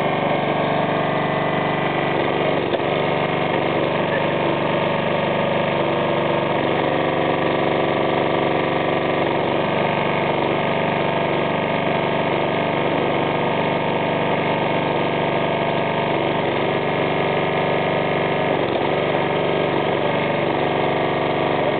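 Hydraulic log splitter's 159 cc, 5 HP four-stroke petrol engine running steadily at a constant speed.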